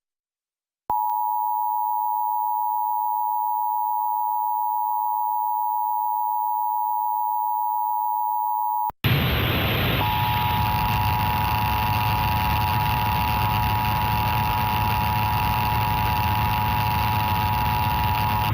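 Emergency Alert System attention signal: a steady two-tone alarm (the 853 Hz and 960 Hz pair) held for about eight seconds. It cuts off, and a loud hiss with a low hum takes over, with the same two-tone sounding again under it a second later.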